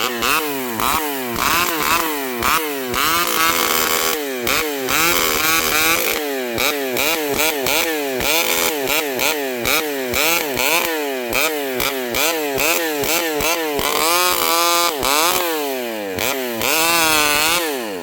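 Vintage Pioneer two-stroke chainsaw running loud, its engine speed rising and falling over and over. It drops back toward idle at the very end.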